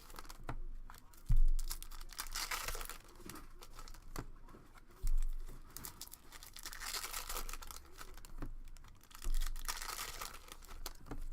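Foil hockey card pack wrappers being torn and crinkled by hand, with three dull thumps on the table about a second, five seconds and nine seconds in.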